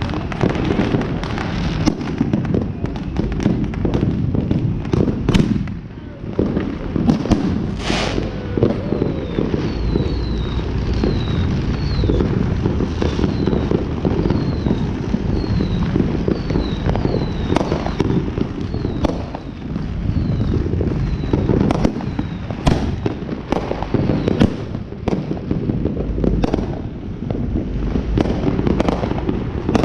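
Many fireworks going off at once: a continuous crackle of pops and bangs, with a few louder single bangs, the loudest about eight seconds in.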